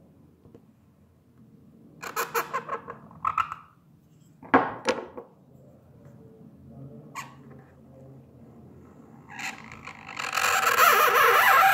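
Reed calligraphy pen scratching across paper in short strokes: a quick run of scratches about two seconds in, a sharper scrape a couple of seconds later, a single tick, then a long loud rasping scratch near the end.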